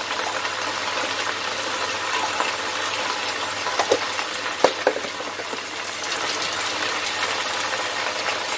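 Lettuce greens sizzling in a wok over a high gas flame, a steady hiss as the leaves give off their water. A few light clicks about four to five seconds in.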